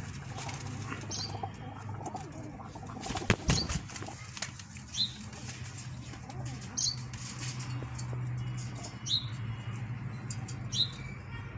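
Domestic pigeons flapping their wings and scuffling, with sharp flaps loudest a few seconds in. Short high chirps come every second or two over a low steady hum.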